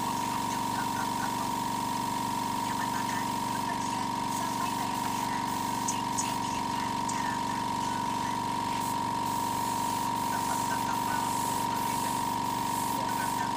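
Steady machine drone with a constant high-pitched whine running through it, and a few faint scattered clicks.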